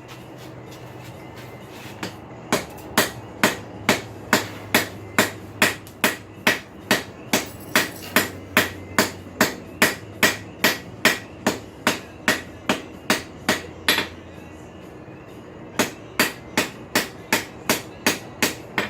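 Blacksmith's hand hammer striking hot steel on an anvil in a steady rhythm of about two and a half blows a second, shaping the head of a snake forged from a farrier's rasp. The blows pause for nearly two seconds and then resume, over a low steady hum.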